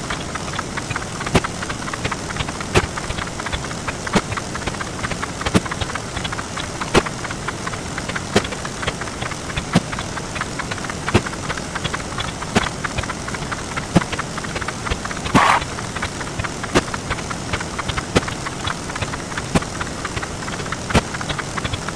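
Counting-video sound effects sped up 64 times, heard as a dense rattle of rapid clicks. A louder click comes about every second and a half, and a short burst of noise comes about fifteen seconds in.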